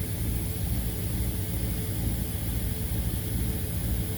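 Steady low rumbling background noise with a faint hum and hiss, and no distinct sound events.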